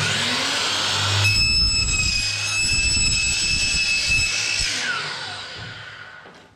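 Power saw starting up and running, then cutting for about three seconds with a high whistling whine, and winding down with a falling pitch once it is released.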